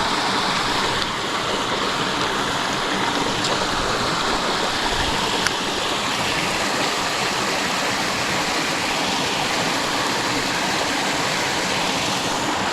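Water pouring steadily through a small river spillway: an even, unbroken rush of falling and flowing water.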